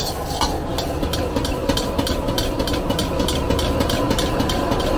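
Metal ladle scraping and knocking against a carbon-steel wok in quick, regular strokes as rice is stir-fried, over the steady rumble of a gas wok burner.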